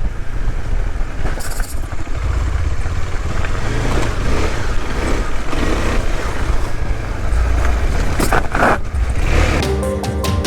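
KTM 390 Adventure motorcycle riding, its engine running under a heavy, rough wind rumble on the microphone. Music starts near the end.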